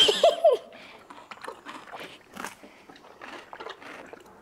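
Pony crunching and chewing a carrot, a run of irregular crunches. A short burst of a person's voice at the very start is the loudest sound.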